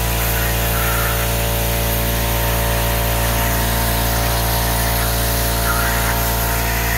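Air compressor motor running steadily with a constant hum while it inflates an inflatable raft.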